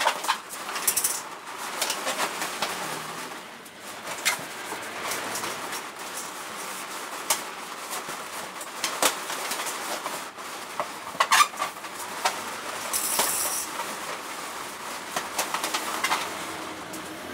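Latex balloons, metallic rose and black, rubbing and squeaking against each other as they are pushed and twisted by hand into a balloon arch, with irregular light taps and two short squeaks.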